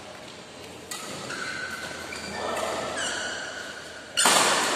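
Badminton rally: rackets strike the shuttlecock about a second in and again at about three seconds, with shoes squeaking on the court floor. A much louder sharp hit comes near the end and echoes in the hall.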